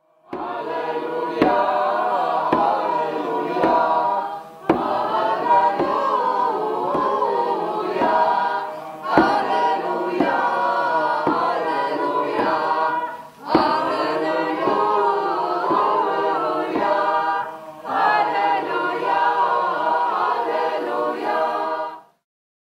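A group of voices singing an Easter 'aliluja' song, unaccompanied, in phrases of about four seconds with short breaks between them. Sharp knocks sound now and then through the singing.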